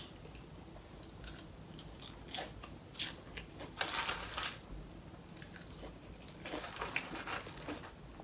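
A person eating: irregular crunching bites and chewing of small pieces of food, a few seconds apart, with the longest crunches about four seconds in and again near the end.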